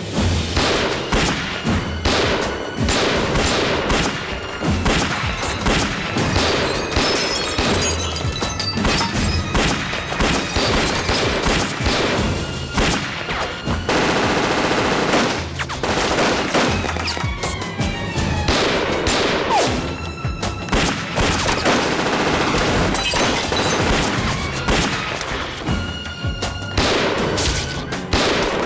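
Dramatized gunfight: repeated gunshots and bursts of automatic fire, over a tense music score. There is a long stretch of rapid fire about halfway through.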